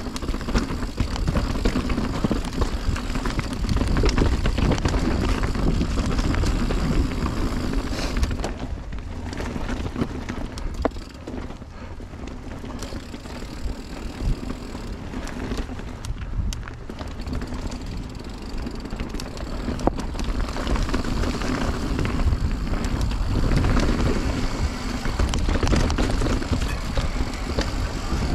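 Mountain bike rolling along a dirt trail: a steady rumble of tyre noise and bike rattle with wind on the microphone and a few sharp knocks. It eases off about a third of the way in and picks up again in the last third.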